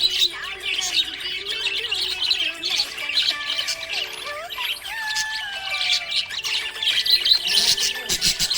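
Budgerigar chirping and chattering, a dense, continuous run of quick high chirps and squawks.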